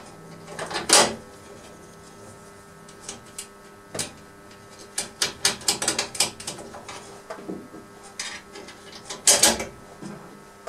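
Handling clicks and knocks as an MDF pulley is screwed to a metal stand with M6 screws: irregular small taps of metal and wood parts, a quick run of them in the middle and a louder clatter about nine seconds in.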